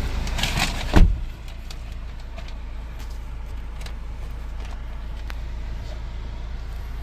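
A car door shuts with a single heavy thud about a second in, after a few light clicks. A steady low rumble runs on under it.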